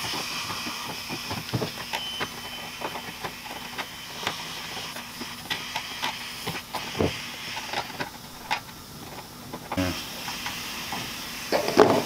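Nitrogen hissing steadily from the air conditioner's copper coil tubing while it is purged for a leak repair, with scattered light clicks and scrapes of a tool working on the coil.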